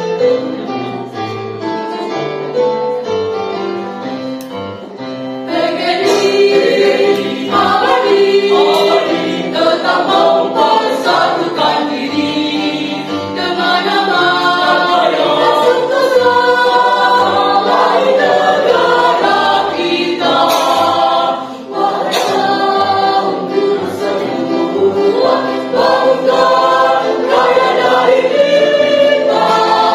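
Mixed choir of men and women singing a march in Indonesian. A quieter instrumental opening lasts about five seconds, then the full choir comes in loudly.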